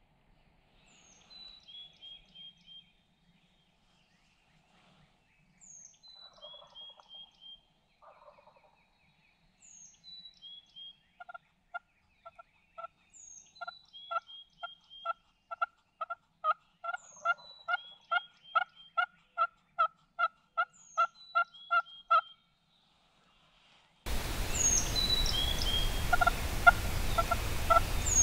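A series of turkey yelps, evenly spaced at about two a second, building up from about ten seconds in. A songbird's short high song, opening with a falling whistle, repeats about every four seconds over it. Near the end the sound turns louder with a steady hiss.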